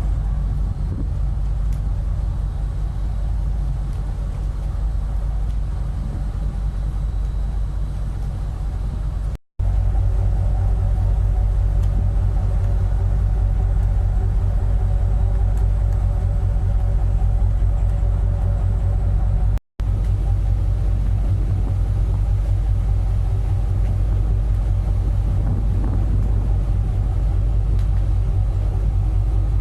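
Ship's engines running with a steady low rumble and hum, broken by two sudden cuts about nine and twenty seconds in, after which the drone is slightly louder.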